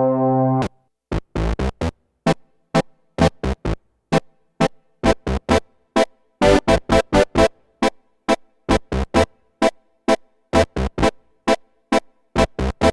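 Nord Stage keyboard playing a Mopho-style analog synth patch. A held chord stops abruptly under a second in, then short staccato synth notes follow in a choppy rhythmic pattern with gaps between them. Some notes have a deep low thump, and the notes come faster about halfway through.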